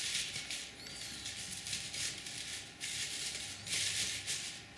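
Crepe-paper flowers rustling and crinkling as they are handled and set into a vase, in three short spells of rustle, with a faint high squeak about a second in.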